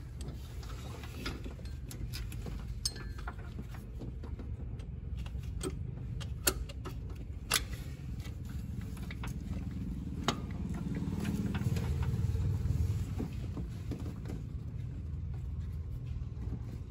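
Scattered sharp metallic clicks and taps from bolts and a small wrench being worked by hand at an A/C compressor's mounting, over a low steady hum.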